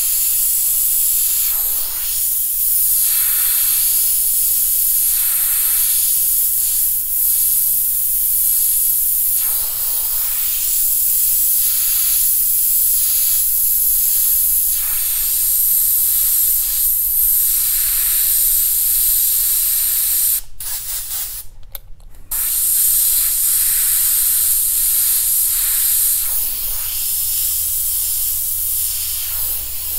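Airbrush hissing with compressed air as it sprays paint, steady with small dips as the trigger is eased. The hiss cuts out several times in quick succession about two-thirds of the way through.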